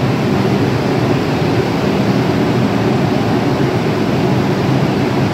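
Steady rumble and hum of an R142 subway train standing at the platform with its doors closed.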